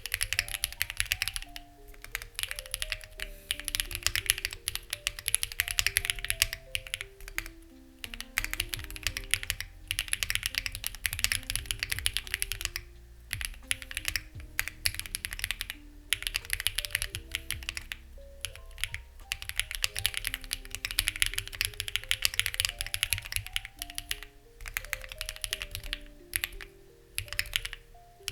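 Fast typing on a Lucky65 v2 mechanical keyboard with stock, unlubed HMX Ziwei switches and CMK-clone keycaps: dense runs of key clacks, broken by brief pauses about every few seconds. Soft background music with held notes and a low bass runs underneath.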